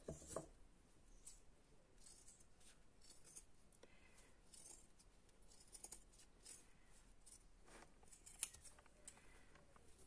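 Tailor's shears snipping through cloth: quiet, irregular cuts, with one sharper click about eight and a half seconds in.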